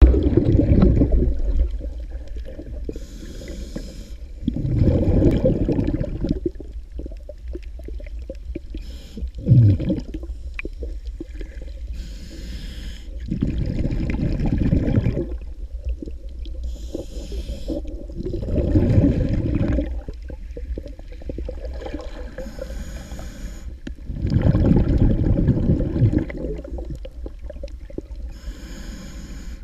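A snorkeler's slow breathing through a snorkel, heard muffled underwater: a long rushing breath about every five seconds, with fainter hissing between breaths.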